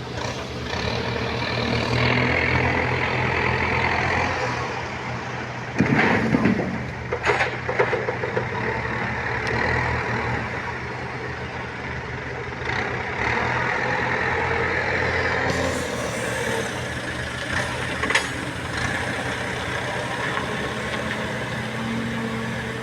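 Backhoe loader's diesel engine running steadily while it digs, with a cluster of loud knocks and clatter about six seconds in and another sharp knock near the end, as the bucket works against rock.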